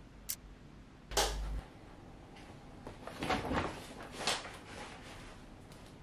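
A door latch clicks, then the door knocks and thuds open about a second in. A few softer rustles and knocks follow.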